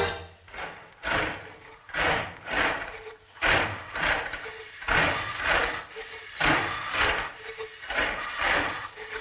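Cartoon machine sound effects from a letter-making roller machine at work: noisy mechanical strokes coming in pairs, about every second and a half, each with a short low hum.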